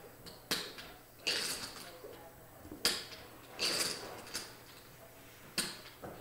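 Poker chips clicking and clattering as a player handles his stack at the table: five or so sharp clicks spaced about a second apart, two of them trailing into short rattles.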